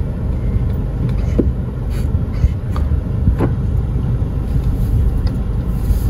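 Car engine running as the car rolls slowly, heard from inside the cabin as a steady low rumble, with a few faint ticks.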